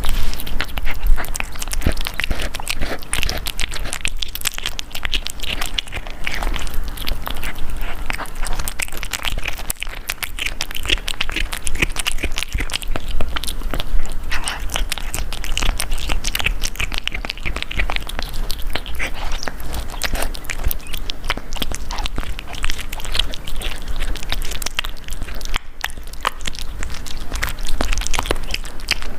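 Kitten eating close to the microphone: a dense, continuous run of quick chewing and biting clicks.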